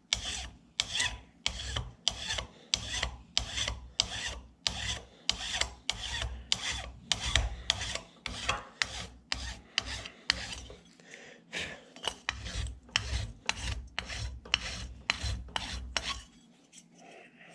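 Flat hand file rasping back and forth over a solder patch on a brass carburetor float, about two strokes a second, taking excess solder off the repair. The filing stops near the end.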